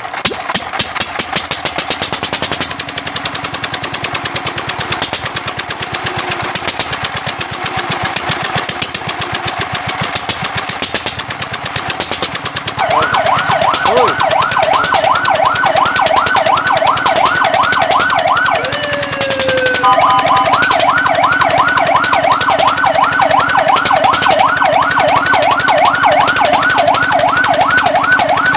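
An engine runs with a rapid, even knocking. Nearly halfway in, a fire truck siren starts a fast up-and-down yelp. It breaks off briefly with a falling glide about two-thirds of the way in, then carries on yelping.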